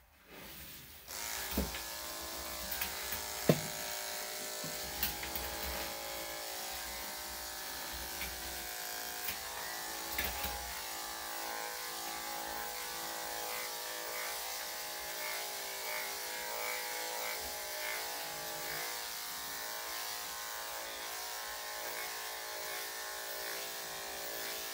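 Electric dog grooming clippers switch on about a second in and run with a steady buzz as they clip a small terrier's long coat. A couple of sharp clicks come in the first few seconds.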